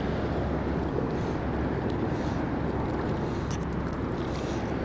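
Steady rush of river current flowing over rocky shallows, with a few faint ticks about three and a half seconds in.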